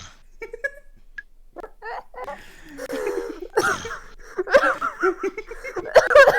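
Several people giggling and laughing, held in at first with a few short snickers, then breaking into louder open laughter from about three seconds in.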